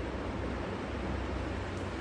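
Steady background noise: an even hiss with a low rumble underneath and no distinct sound standing out.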